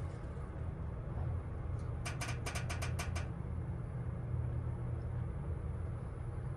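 Lift car travelling down between floors: a steady low hum, with a quick run of about eight sharp clicks a couple of seconds in.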